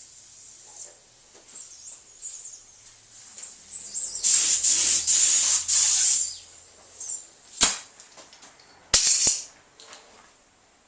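Paint being sprayed onto a van panel: a hiss of spray lasting about two seconds, starting about four seconds in. A few sharp clicks follow.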